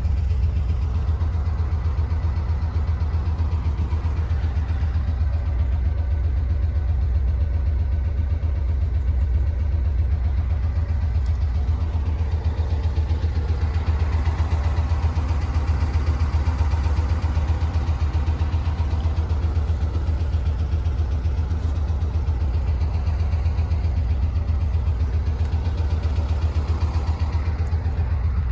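VW Kombi's rear-mounted engine idling steadily, a low, even rumble heard inside the van's cabin.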